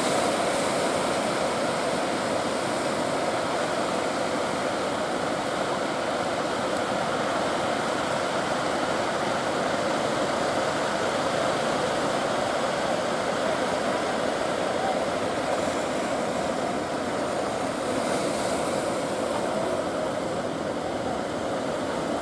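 Steady rush of surf breaking along the shore and over rocks.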